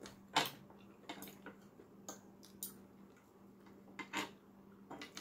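Close-up eating sounds: a person chewing, with a string of sharp wet mouth clicks and smacks and light spoon clinks, the loudest about half a second in.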